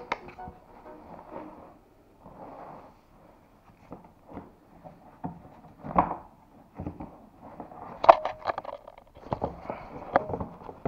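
Handling noises from a plastic motocross boot and helmet being turned over against a cardboard boot box: rustling and scraping with several scattered knocks, the sharpest about six and eight seconds in.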